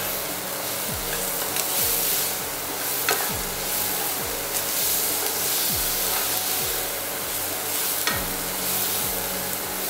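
Sliced mushrooms sizzling steadily in butter in a hot non-stick frying pan while a wooden spatula stirs and scrapes them, with a few light taps of the spatula against the pan.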